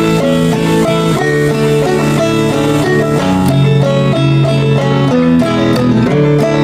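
Background music led by plucked guitar, with a steady run of changing notes.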